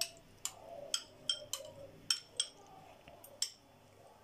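A metal spoon clinking against a small glass bowl while scraping out curd, in a series of sharp, irregular clinks, about nine in four seconds.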